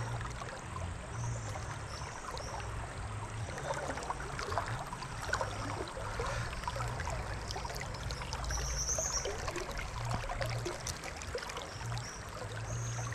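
Steady rush and trickle of river water, with small scattered splashes and clicks as a caught mojarra is handled and unhooked with pliers.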